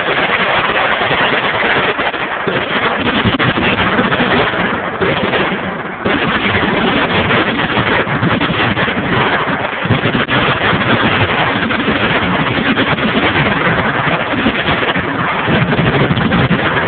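Many machine guns firing at once on a shooting line, their shots overlapping into a continuous loud clatter that starts suddenly and barely lets up.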